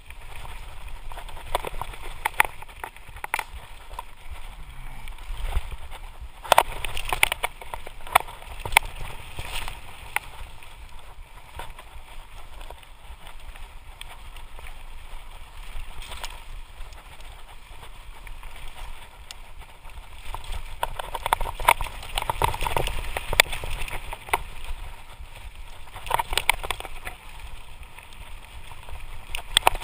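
Lapierre Spicy full-suspension mountain bike descending a rough dirt and rock trail: tyres rumbling over the ground, rushing wind, and frequent sharp clatters and knocks as the bike hits stones and roots. The clatter is busiest a few seconds in and again past the middle.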